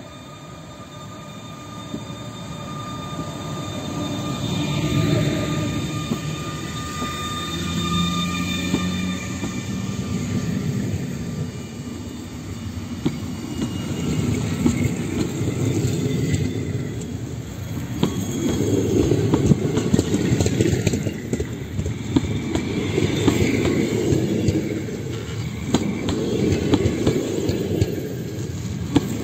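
PKP Intercity passenger train pulling out, hauled by an EU160 (Newag Griffin) electric locomotive. The locomotive passes with a steady electric whine, then the coaches roll by, getting louder as it gathers speed, with the wheels clicking over the rail joints.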